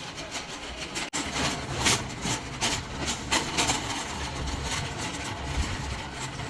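Irregular rattling and knocking over a steady low rumble, broken by a short cut about a second in.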